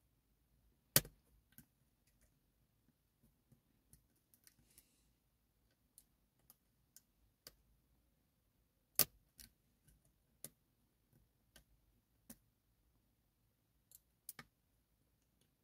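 Faint, irregular small clicks of a lock pick and tension wrench working the pins inside a Japanese Goal P lock. Two sharper clicks come about a second in and about nine seconds in.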